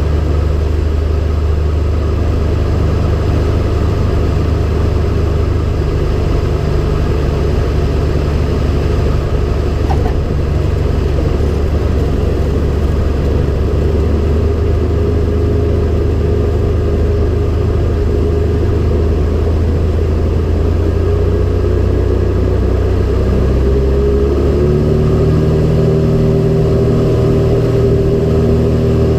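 Cessna 170B's six-cylinder Continental engine and propeller running with a steady drone; about 24 seconds in the pitch steps up as power is increased.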